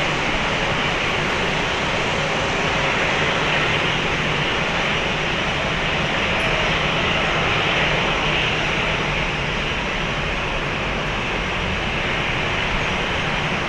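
Airbus A350-1000's Rolls-Royce Trent XWB-97 turbofan engines running at low taxi power as the airliner turns onto the runway to line up for takeoff, a steady rushing jet noise.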